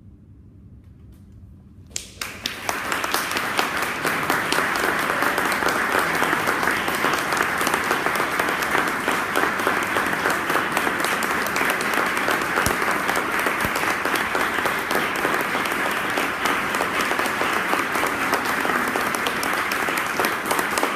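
Audience applauding: after a quiet moment, clapping breaks out about two seconds in and carries on, dense and steady.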